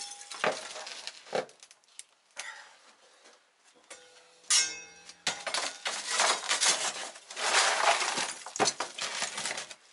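Kitchen clatter of utensils and dishes: scattered clinks and knocks, one sharp ringing clink about four and a half seconds in, then a long stretch of scraping and rattling.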